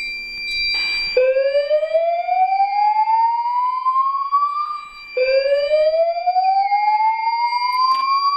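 Fire alarm speaker sounding the slow-whoop evacuation tone: a tone sweeping upward over about four seconds, twice, over a steady high tone. It is the building's fire evacuation signal, sounded in a system test.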